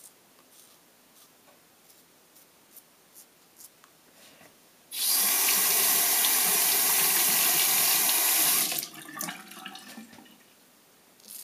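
Bathroom sink tap running hard for about four seconds, starting about five seconds in, with water splashing into the basin as a double-edge safety razor is rinsed under it. The tap then shuts off, leaving a few splashes and light knocks.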